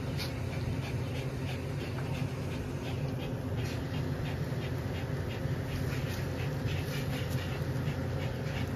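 Male German shepherd panting during mating, a regular run of quick breaths over a steady low hum.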